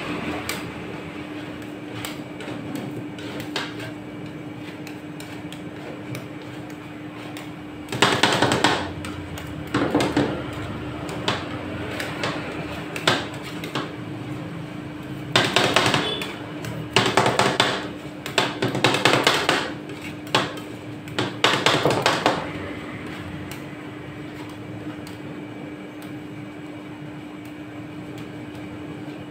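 Metal spatulas rapidly chopping and scraping ice cream mixture on the chilled steel plate of a rolled ice cream machine, in several bursts of fast tapping with quieter scraping between, over the machine's steady hum.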